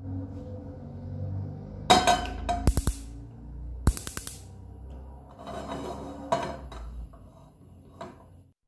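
A frying pan is set on the metal grate of a gas hob and the burner is lit, with a cluster of sharp clicks and clatter about two to three seconds in and another click near four seconds, over background music.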